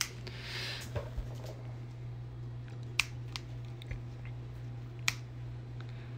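Scissor-style pet nail clipper snipping a corgi puppy's nails: two sharp clicks about two seconds apart, with a few fainter ticks between, over a low steady hum.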